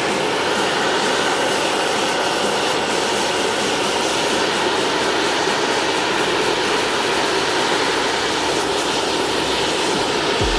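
Butane gas torch running, a steady, even hiss of its flame.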